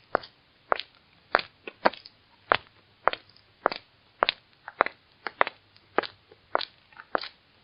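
High-heeled shoes walking at a steady pace on a hard floor: sharp heel clicks a little under two per second, each with a fainter click from the sole.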